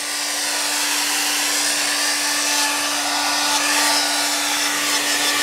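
Handheld hair dryer running steadily: an even rush of blown air with a steady motor hum underneath.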